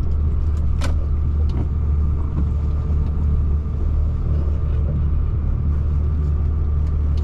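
Truck engine running steadily, heard from inside the cab as the truck moves slowly into a parking spot: a deep, even hum, with a sharp click just under a second in.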